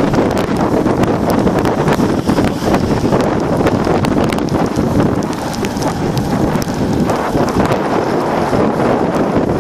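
Wind buffeting the microphone from a moving vehicle, a loud steady rush of air and road noise, with a rapid scatter of sharp rattling clicks.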